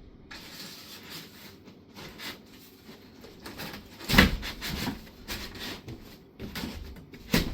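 Cardboard wardrobe panels and shelves being handled and slotted together: rubbing and scraping with scattered light knocks, and a louder thump about four seconds in and another near the end.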